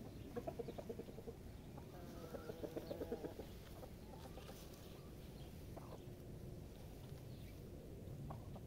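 Chickens clucking: two runs of quick clucks in the first few seconds, then a few fainter single calls.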